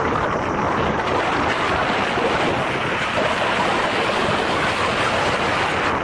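Wind rushing over the microphone of an Insta360 One R action camera carried on a paraglider in flight: a loud, steady rushing noise with no change.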